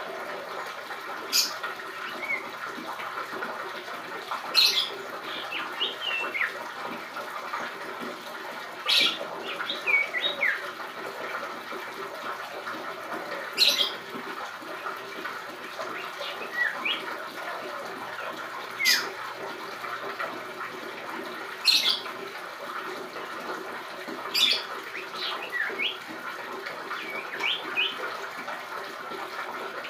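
Young common iora (cipoh) still learning its song, giving a sharp high call every few seconds followed by a few short, thin chirps. A steady hum and hiss sits beneath the calls.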